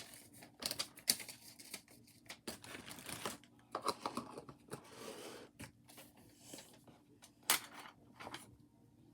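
Irregular clicks, taps and paper rustling as craft supplies (paper, scissors and small items from a box) are handled.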